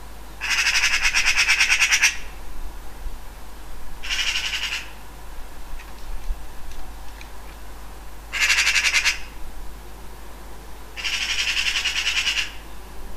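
Eurasian magpie chattering: four bouts of rapid, harsh rattling calls, the first and last about a second and a half long, the two in between shorter.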